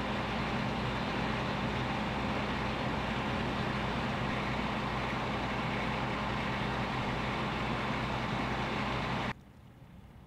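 A motor vehicle engine running steadily, a low hum under an even rumble. It cuts off abruptly about nine seconds in, leaving only a faint background.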